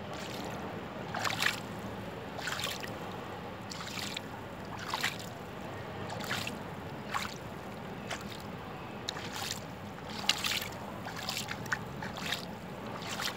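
Small waves lapping at the water's edge on a sandy beach, with a short splash about every second or so over a steady wash.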